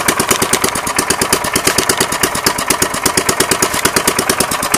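1972 Briggs & Stratton 3.5 hp single-cylinder lawnmower engine running with no muffler: a loud, fast, even popping straight from the open exhaust port. It is not running well, and the owner thinks it might need some carb tuning.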